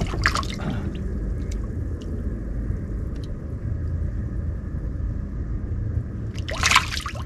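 Steady low rumble on a fishing boat with a faint hum above it, a few light clicks, and a short louder burst of noise near the end.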